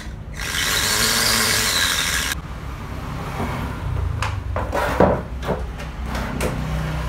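A loud, even hiss for about two seconds that cuts off abruptly. It is followed by scraping and knocking handling noises on a workbench over a steady low hum.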